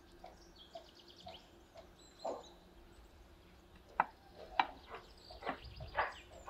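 Small birds chirping in short, high calls with a brief trill, over a quiet background. In the second half come a few short, louder sounds, the sharpest about four seconds in.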